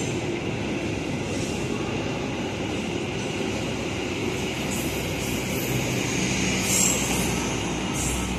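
Argo Parahyangan passenger train's stainless-steel coaches passing through at speed: a steady rolling noise of wheels on rail with a thin, steady high whine over it, and a few short rattles near the end.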